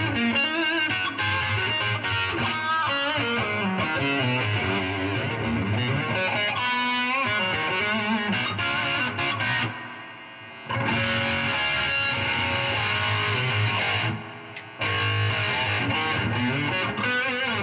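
Electric guitar played through an amplifier, picked lines with bent notes, heard through a rewound vintage humbucker pickup fitted with an alnico 2 magnet. The playing breaks off briefly twice, about ten and fourteen seconds in.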